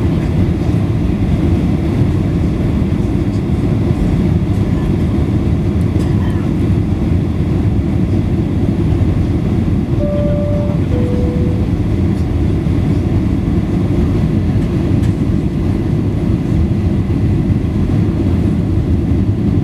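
Steady low roar of engines and airflow inside the cabin of a Boeing 737-800. About ten seconds in, a two-note cabin chime sounds once, the second note lower than the first.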